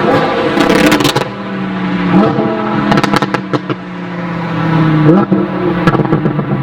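Lamborghini Huracán LP610-4's V10 through an Armytrix titanium exhaust, revving up sharply twice over a steady engine note, with bursts of crackles and pops from the exhaust as the revs fall.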